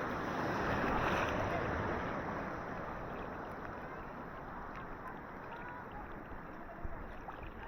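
Ocean waves washing up on a sandy beach: the surge swells to its loudest about a second in, then slowly fades as the water draws back.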